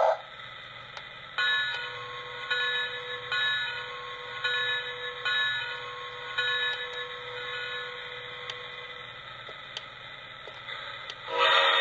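The bell sound effect of a Lionel New York Central Flyer locomotive's TrainSounds system, rung from the transformer's bell button. It dings about seven times in six seconds, each strike sharp and then fading. It then stops, leaving a faint hum.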